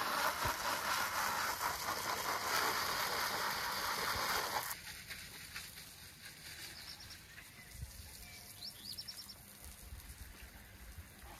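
Garden hose spraying water onto plastic weed-control membrane, a steady hiss that cuts off suddenly about four and a half seconds in. Afterwards, faint outdoor ambience with a few short bird chirps.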